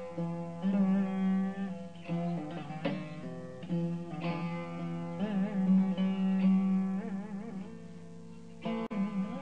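Saraswati veena played with bare fingers, no plectrum, over its steady drone strings: plucked notes in raga Ritigaula, with slides and wide oscillating gamakas in the middle, then a fresh stroke near the end after a quieter stretch.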